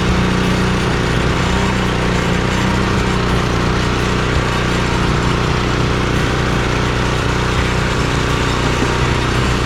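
Power trowel engine running steadily as it finishes a fresh concrete slab.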